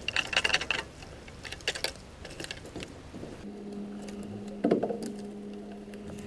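A burst of rattling clicks, then an electric trolling motor starts a steady hum about three and a half seconds in, with a single knock a second later.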